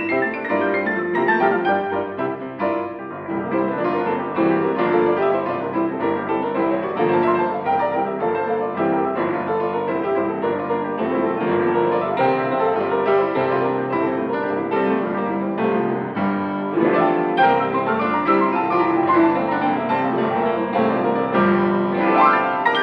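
Two pianos playing together in a duo-piano piece, a dense stream of notes without a break.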